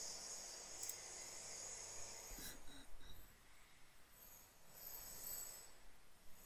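Quiet room tone with faint microphone hiss and a few faint clicks about two to three seconds in.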